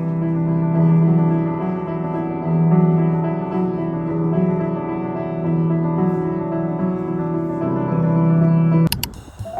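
Solo piano playing slow, ringing chords over a repeated low note. The playing cuts off abruptly near the end, followed by a few sharp clicks.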